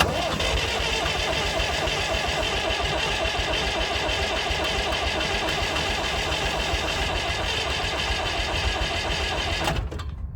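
International 3414 backhoe's diesel engine cranking on the starter motor for about ten seconds without catching: a starter whine that rises at first over the engine's even turning rhythm, then cuts off suddenly. The cold diesel is slow to fire and is about to be given a whiff of starting fluid.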